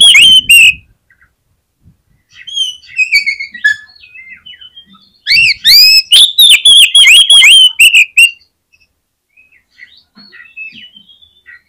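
Oriental magpie-robin (kacer) singing in full, loud song. There are two loud runs of quick, repeated whistled notes, the second from about five to eight seconds in, with softer, varied whistles and chirps between and after them.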